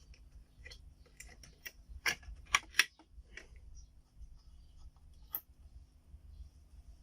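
Sharp plastic-and-metal clicks and taps of a desktop RAM module being handled and pushed into its motherboard slot, the slot latches snapping; the two loudest clicks come close together about two and a half seconds in, with one more near the middle, over a low steady hum.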